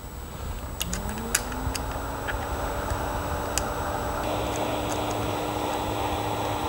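Switching power-supply battery charger's cooling fan spinning up as the charger takes load: a hum that rises in pitch about a second in and then holds steady, growing to a fuller whir about four seconds in. A few sharp clicks from the charging leads being handled.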